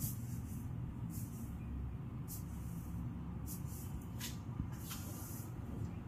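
Soft crinkling rustles of foil insulation under a cat's paws, coming about once a second with a couple of sharper crackles near the end, over a steady low rumble.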